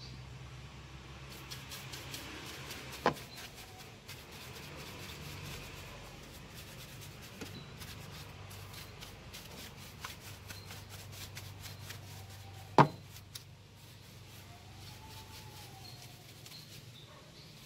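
A soft-bristled detailing brush scrubbing dust off a car's engine bay, with light scratchy strokes over the plastic engine cover and fittings. Two sharp knocks stand out, one a few seconds in and a louder one about two-thirds of the way through.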